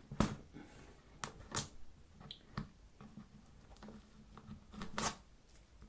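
Fingers picking and scratching at a sealed smartphone box's packaging, trying to get it open by hand: a scattering of faint scrapes and clicks, a little louder near the end.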